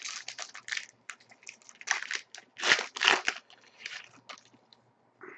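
Foil wrapper of a hockey card pack crinkling and tearing as it is ripped open by hand: a quick run of crackly rustles, loudest about halfway through.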